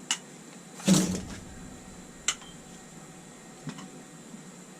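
Handling of PEX pipe, fittings and hand tools: a few sharp clicks, with one louder clatter about a second in.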